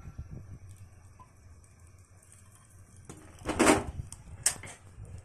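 A dark frying pan tipped over a ceramic plate: a short scraping clatter about three and a half seconds in, then a single sharp tap a moment later.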